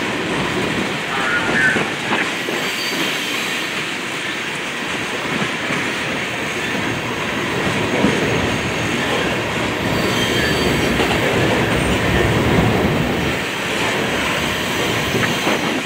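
Train of steel tank cars rolling past: a steady rumble and clatter of wheels on the rails, with brief high wheel squeals now and then.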